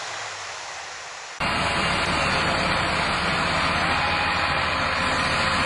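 Rushing river water, a steady hiss, cuts off abruptly about a second and a half in. An engine takes over, idling steadily with a fast, even low pulse.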